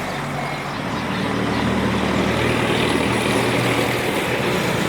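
A motor vehicle's engine running close by, growing louder about a second in and then holding steady, over general traffic noise.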